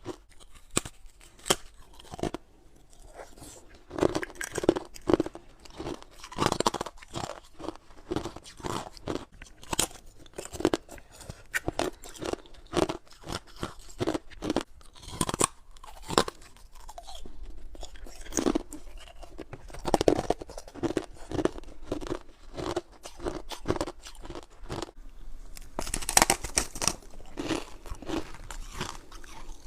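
Close-up crunching and chewing of frost-covered ice chunks from a humidifier freezer tray: irregular sharp crunches one after another, with a denser burst of crunching near the end.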